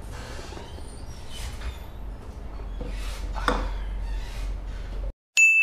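Low steady room hum with a few soft eating and handling noises. Then the sound cuts out abruptly and a single bright bell-like ding, an added editing sound effect, rings loudly near the end.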